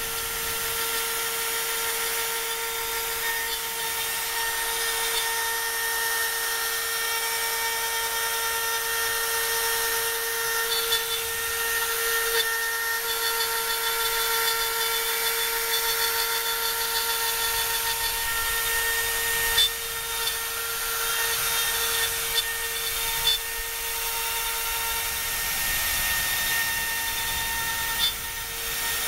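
CNC router spindle running with a steady high whine while its small end mill cuts into a wooden board, with a constant hiss of cutting. A few brief, sharper ticks come in the second half.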